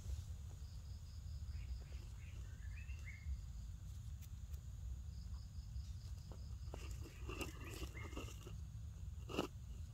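Forest ambience: an insect's evenly pulsed high trill comes in twice, over a steady low rumble, with a few short high chirps. Soft rustles and clicks near the end.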